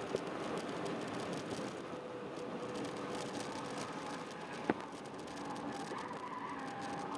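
Honda Jazz 1.3-litre four-cylinder engine running at speed on track, with steady road and wind noise. There is one sharp click about two-thirds of the way through, and the engine note shifts in pitch near the end.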